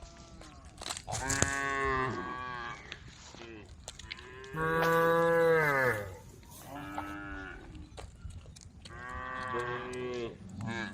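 Cattle in a herd mooing to one another: about four long calls one after another, each sliding in pitch. The loudest comes about halfway through.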